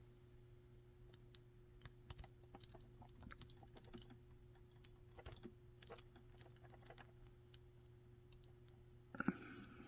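Faint, scattered small clicks and scratches of an improvised lock pick, a rake bent from a clothespin spring, working in a lock's keyway, with one louder knock near the end. A faint steady hum runs underneath.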